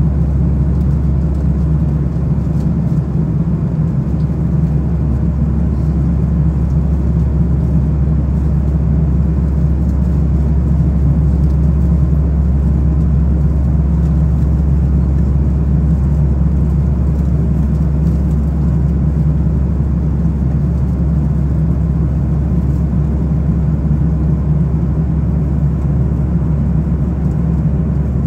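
Airliner cabin noise in flight: the jet engines and the airflow past the fuselage make a steady low drone, with no change throughout.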